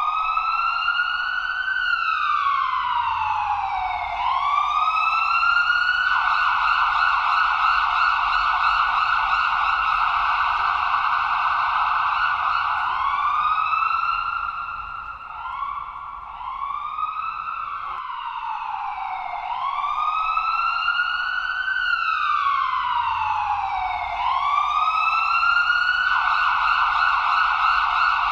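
Ambulance electronic siren wailing in slow sweeps, each rising for about two seconds and falling again, then switching to a fast-cycling tone held near the top of its pitch. In the middle it breaks into several quicker short sweeps before the slow wail starts again.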